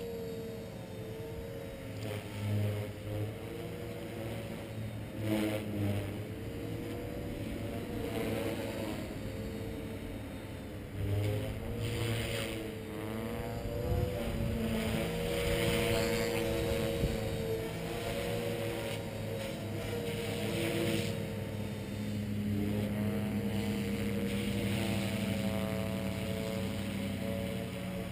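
Walkera V450D01 electric RC helicopter in flight: its motor and rotor hum keeps rising and falling in pitch as it is thrown through aerobatic manoeuvres.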